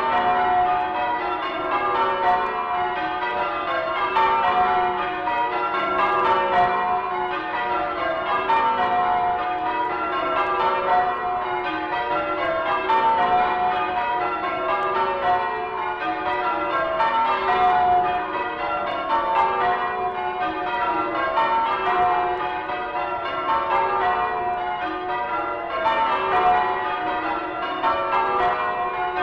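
A ring of church tower bells being change-rung, the bells struck one after another in a steady, evenly repeating sequence with their tones ringing on and overlapping. Played from a vinyl sound-effects record.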